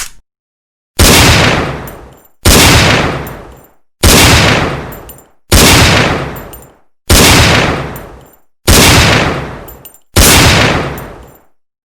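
Desert Eagle pistol fired seven times, evenly about a second and a half apart. Each shot starts suddenly and dies away slowly in a long echoing tail that is almost gone before the next.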